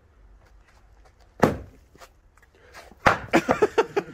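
An axe blow striking wood once, sharp and loud, about a second and a half in. About three seconds in comes a quick run of short sounds, about seven a second.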